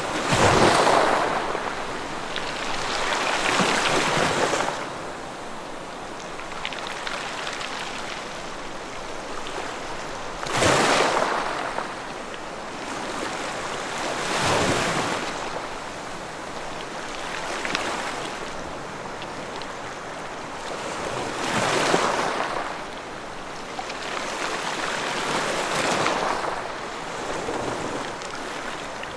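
Ocean waves breaking and washing up the shore, a rush of surf swelling and fading every few seconds over a steady background wash.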